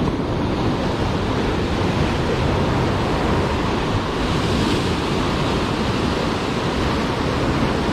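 Rough ocean surf breaking on coastal rocks: a loud, steady rush that swells a little around the middle.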